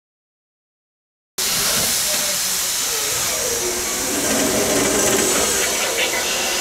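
Silence, then about a second and a half in a steady loud hiss of escaping steam from a steam locomotive cuts in suddenly and keeps going.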